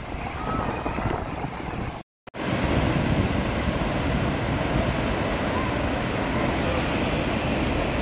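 Steady rushing of a tall waterfall and its rocky stream, with wind buffeting the microphone. The sound cuts out for a moment about two seconds in, then returns louder and more even.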